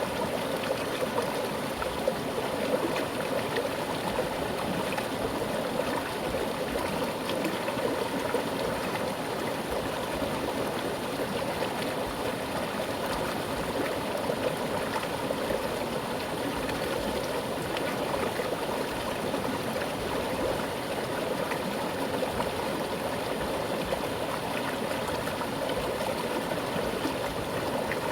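Mountain river flowing with a strong current: a steady rushing and gurgling of water over rocks.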